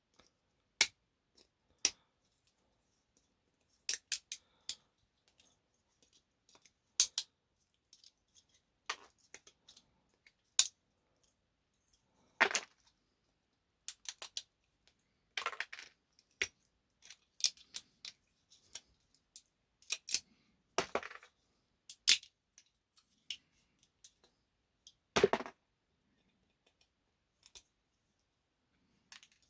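Pliers snapping the small support bits off 3D-printed model tanks: irregular sharp clicks and snaps, some single and some in quick clusters, with quiet gaps between.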